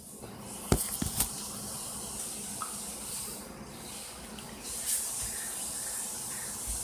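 A phone being handled and set in place: a few sharp knocks about a second in, then a smaller one near the end, over a steady hiss.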